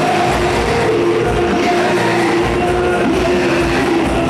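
Live church worship music played loud: held notes over a steady bass beat, with voices singing.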